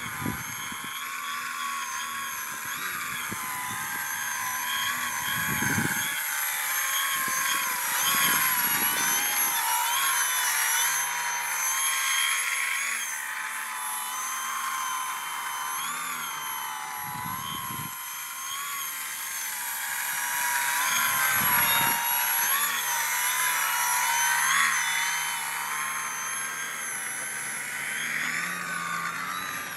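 Electric motor and propeller of an Aerokinetix Yak 55M Pro foam 3D aerobatic RC plane whining as it hovers on its prop and manoeuvres, the pitch rising and falling with the throttle. A few brief low rumbles come through.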